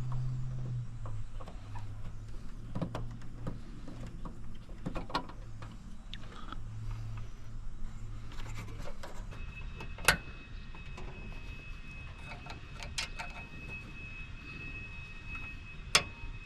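Scattered clicks and knocks of hands working plastic parts in a truck's engine bay. A low hum runs under the first half, and a thin steady high tone takes over for the second half.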